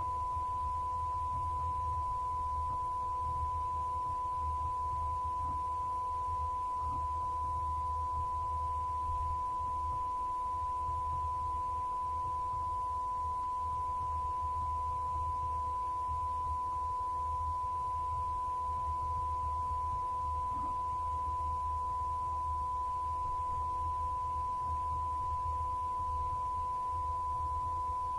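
A steady, unbroken test tone at about 1 kHz over a faint low hum: placeholder audio standing in for a copyright-blocked video.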